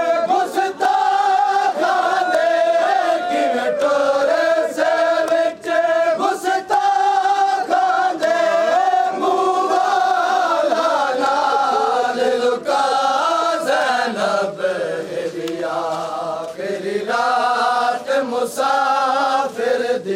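A crowd of men chanting a noha lament in unison, in long held, wavering lines, with sharp slaps of chest-beating (matam) coming in a loose beat under the voices.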